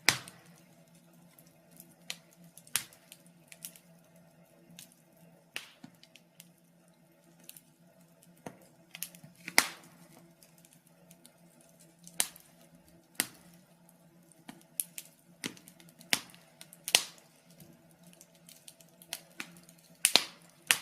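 Wood fire crackling: irregular sharp pops and snaps, a second or so apart, some much louder than the rest, over a faint steady low hum.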